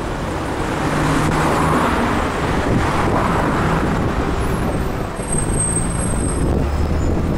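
City road traffic: cars, pickups and vans driving past, a steady mix of engine hum and tyre noise on asphalt.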